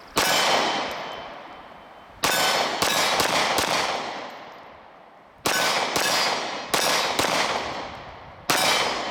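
SIG Sauer P365 9mm micro-compact pistol firing 115-grain full metal jacket rounds: about ten shots in uneven groups, one at the start, a quick string of four, then more spaced shots. Each shot is loud and rings out with a long fading echo.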